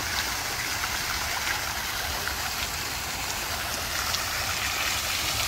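Water fountain, a jet spraying up and falling back over a large bowl into its basin: a steady splashing hiss.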